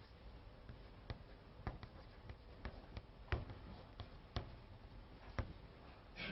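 Faint, irregular light taps and strokes of writing on a board, with two louder knocks about three and five seconds in.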